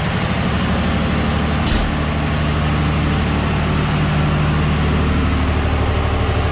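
Kohler marine generators running in a yacht's engine room: a loud, steady low hum, with one brief knock just under two seconds in.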